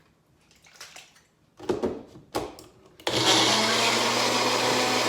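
A few knocks, then a countertop blender's motor switches on suddenly about three seconds in and runs at a steady speed, blending a piece of aloe vera with water.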